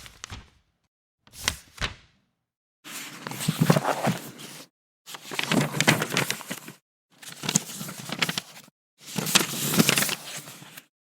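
Paper book pages being turned one after another in separate takes, each a rustle of paper with silence between. The first one, about one and a half seconds in, is short, and four longer turns of about two seconds each follow.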